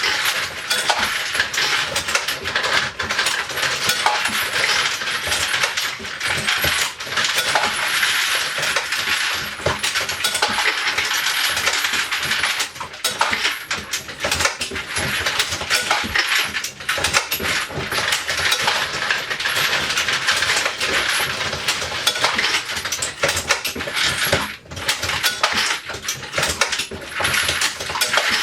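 Continuous dense metallic clatter of 9mm bullets and brass cases tumbling in the motor-driven collator bowls of a 3D-printed bullet feeder and a case feeder on a progressive reloading press.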